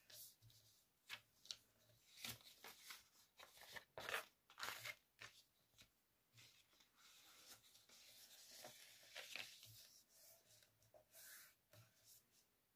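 Faint rustling and crinkling of a sheet of A4 paper being folded and creased by hand, in a string of short scrapes and crackles, loudest about four seconds in.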